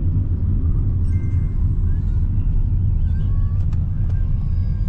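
Car driving along, heard from inside the cabin: a steady low rumble of engine and road noise, with faint thin tones above it and a couple of faint clicks in the second half.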